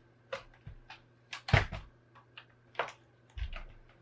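Clicks and knocks of an open Acer Aspire 5742 laptop being handled as its power lead is plugged in: a string of sharp clicks with a few heavier thumps, the loudest about one and a half seconds in.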